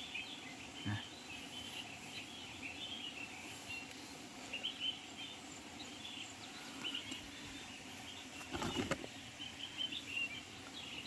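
Small birds chirping in woodland, with many short high chirps scattered throughout over a steady outdoor background. A brief rustle comes about eight and a half seconds in.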